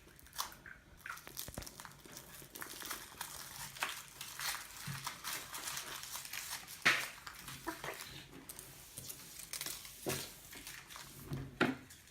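Foil wrapper of a chocolate surprise egg crinkling as it is unwrapped, in irregular crackles, with one louder crackle about seven seconds in.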